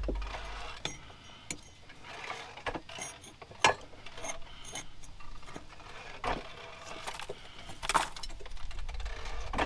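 Metal tools and parts clinking and knocking during hand work under a car, a dozen or so sharp clicks at irregular intervals, with a brief low rumble at the start.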